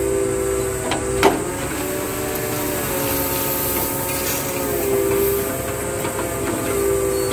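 Hydraulic scrap grapple crane at work: a steady machine whine that shifts pitch every second or two as the boom and grab move, with a few sharp clanks of the steel grab, the loudest about a second in.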